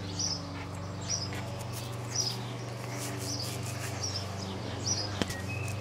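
A small bird chirps high and short about once a second over a steady low hum, with a sharp click about five seconds in.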